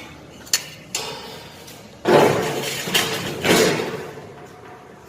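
Hard objects knocked and scraped on a workbench: two light clicks, then two rough scraping sounds of about a second each, like steel frame pieces or tools being shifted while a frame corner is marked out.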